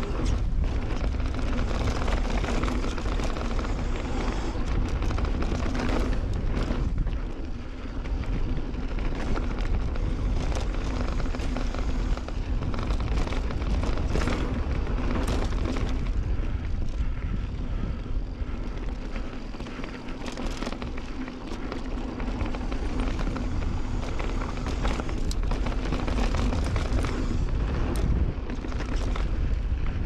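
Wind buffeting the microphone of a camera mounted on a Santa Cruz Bronson mountain bike ridden fast down a dirt trail. Tyres rumble over the dirt, and the bike knocks and rattles over bumps throughout.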